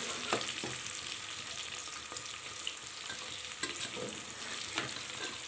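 Sliced onions sizzling as they fry in hot oil in an aluminium pressure cooker, a steady hiss, with a few light clicks of a metal spoon against the pot.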